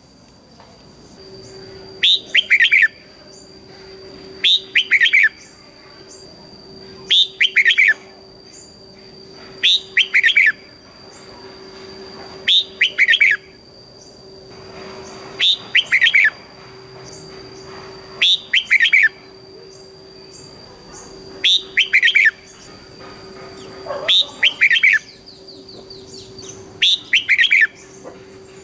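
Red-whiskered bulbul singing, a short loud whistled phrase repeated about every two and a half to three seconds, ten times in all. It is the 'double' (เบิ้ล) song style played to caged bulbuls to get them singing.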